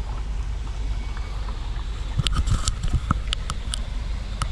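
Wind buffeting the microphone, a steady low rumble, with a handful of sharp clicks and taps from about two seconds in.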